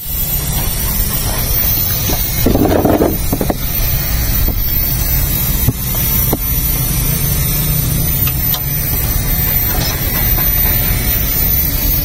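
Car engine idling steadily under an open bonnet while its air-conditioning system is being recharged with refrigerant through manifold-gauge hoses, with a steady rushing hiss over the low engine rumble and a few light clicks.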